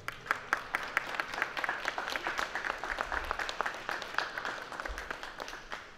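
Spectators applauding, a round of clapping with single claps standing out, which cuts off suddenly at the end.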